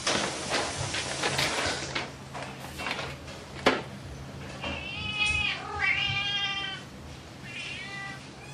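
Domestic cat meowing a few times in short calls that bend in pitch, in the second half. Before the calls there are scratchy rustles as the cat paws a hanging sisal ball toy on a cat tree, and one sharp knock.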